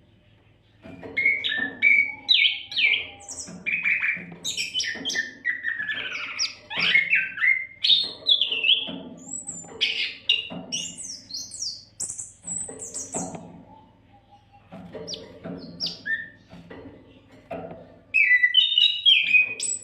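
Oriental magpie-robin (kacer) singing a rapid, varied song of whistles, chirps and sweeping notes. There are short pauses about a second in and around two-thirds of the way through, and a louder burst near the end.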